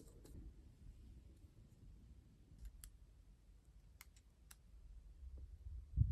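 A few sharp small clicks and taps of tools and parts being handled during an iPad mini repair, over low handling rumble, with a dull thump near the end.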